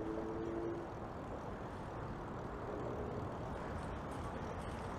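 Steady low rumble of motor traffic, with a brief two-note tone lasting about a second right at the start.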